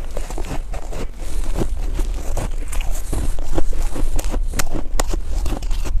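Close-miked chewing of a mouthful of snow: many sharp, irregular crunches as the packed snow breaks up between the teeth, over a steady low rumble.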